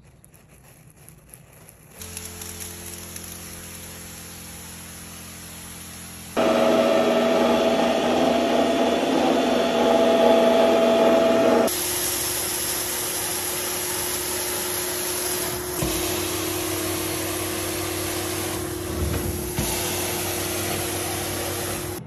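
Carpet extraction machine ("steam cleaner") running: a steady motor whine with rushing suction noise, jumping much louder a few seconds in and dropping back to a steadier, quieter hum about halfway through.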